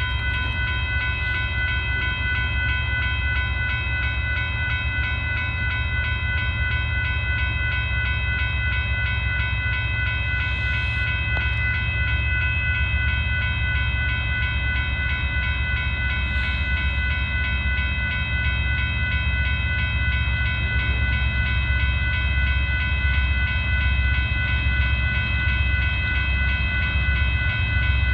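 Railroad crossing warning bell ringing steadily, its clangs running together into a continuous tone, over the low rumble of a train.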